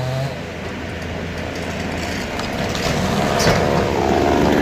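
An engine running steadily, growing louder about three and a half seconds in as a higher engine tone joins.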